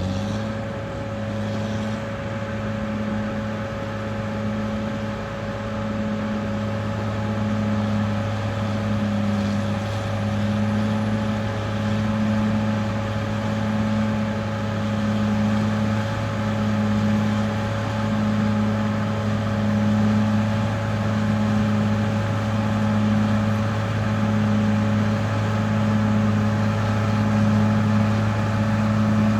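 Caterpillar D6R XL bulldozer's diesel engine running steadily at high revs after picking up speed right at the start. A steady whine sits over it, and a throb swells and fades about every second and a half.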